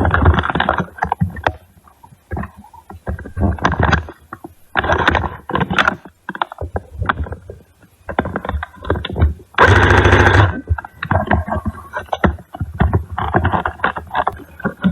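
Rustling and bumping handling noise from a body-worn camera as the player moves, in irregular bursts, with a rapid clattering string of clicks lasting under a second about two-thirds of the way through.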